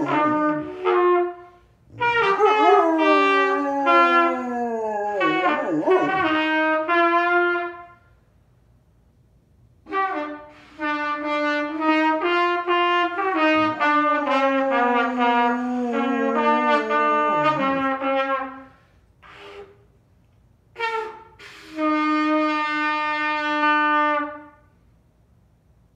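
Trumpet played by a beginner: wavering held notes and pitches that slide downward, in a few long phrases. The phrases are broken by pauses about eight and nineteen seconds in, with a couple of short blasts before the last long note.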